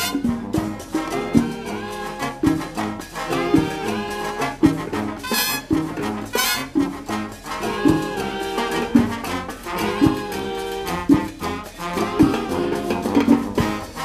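Latin band of saxophones, trumpets and congas playing an upbeat salsa-style tune: horn chords over a steady percussion beat.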